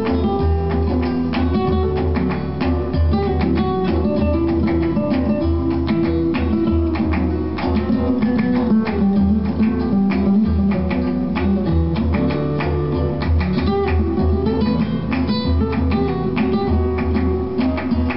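Guitar-led music with a strong bass line playing through a pair of PSB B-25 bookshelf speakers driven by a Sony TA-N7050 amplifier.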